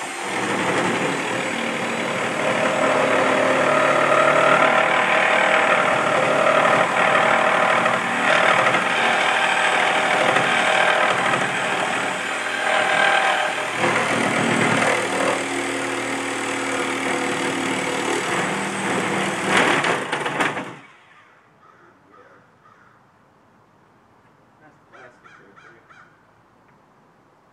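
Reciprocating saw running and cutting into a projection TV cabinet: a steady motor whine with the blade's rattle, the pitch dipping now and then under load. It cuts off suddenly about 21 seconds in, leaving only a few faint knocks.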